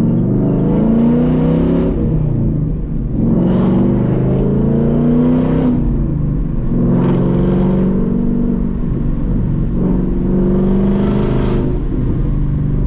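Ford Mustang GT's 5.0 Coyote V8 pulling under acceleration, loud, with its revs climbing about four times and dropping briefly between climbs as the six-speed manual is shifted.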